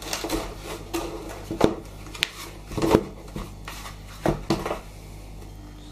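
Cardboard packaging being handled as a cloth-wrapped laptop is lifted out of its box: a string of short knocks, scrapes and rustles from the cardboard box and its moulded cardboard end inserts, a few each second.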